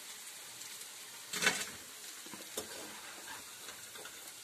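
Pakoras deep-frying in a kadai of hot oil, a steady sizzle. A short clatter of the slotted metal spoon comes about a second and a half in, followed by a few lighter clinks.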